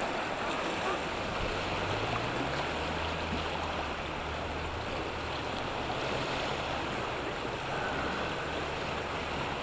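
Steady rush of whitewater from a river rapid running high with spring runoff.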